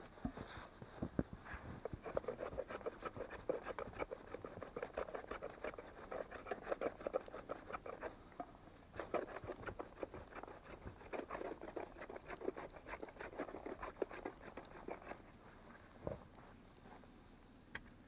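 Rapid scratchy scraping of wood being worked by hand on a wooden pole, in two long spells with a short break about eight seconds in, then a few scattered ticks near the end.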